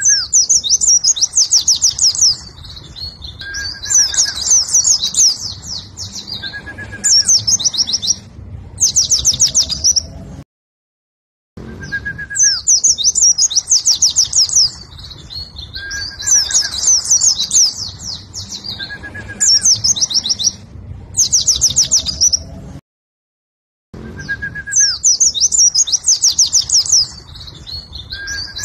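White-eye (pleci) singing: fast, high chattering phrases of about two seconds each, some opened by a short lower whistled note. The same stretch of song repeats about every twelve seconds, broken by short total silences.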